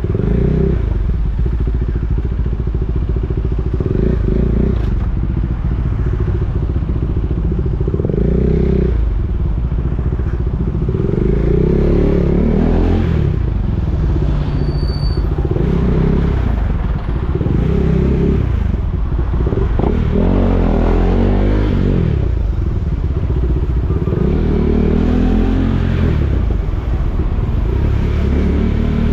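KTM Duke 390's single-cylinder engine running, revving up and easing off again and again.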